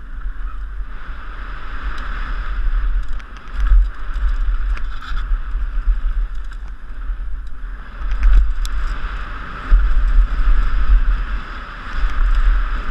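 Wind buffeting the microphone of a helmet-mounted camera on a downhill mountain bike, in heavy gusts, over a steady hiss of the tyres rolling on wooden boardwalk and dirt trail. Frequent short clicks and knocks come from the bike rattling over the bumps.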